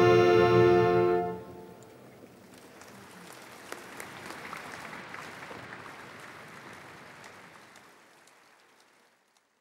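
Military wind band holding a final chord that cuts off about a second in, followed by audience applause that builds and then fades away.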